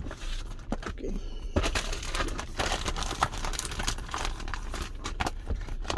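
Crinkling, rubbing handling noise with many small clicks: a phone and its hard plastic protective case being handled close to the microphone.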